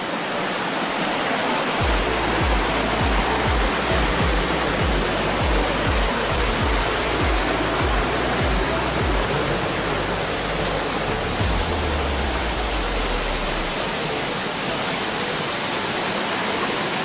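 Steady rushing roar of a waterfall and the rocky mountain stream below it. A low bass thump, about two a second, runs underneath for the first half, followed by a held low note.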